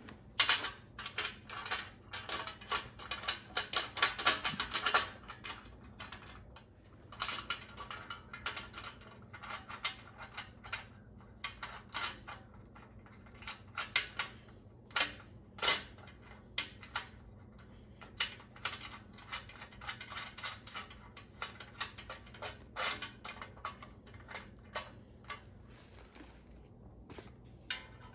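Hand ratchet clicking as the rear bumper bracket bolts are tightened: a fast run of clicks for the first five seconds, then shorter runs of clicks and small metal clinks with pauses between.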